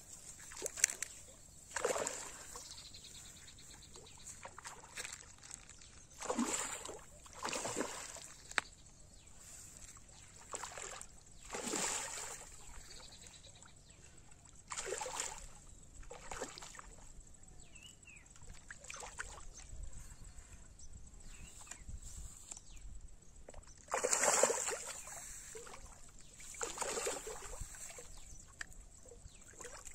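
A hooked rohu splashing at the water's surface as it fights the line, in irregular splashes a few seconds apart, the loudest about 24 seconds in.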